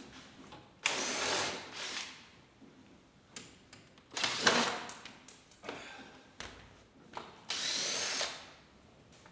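A power drill/driver spinning bolts out of a UTV's front plastic panel in about four short bursts, each under a second, with a motor whine.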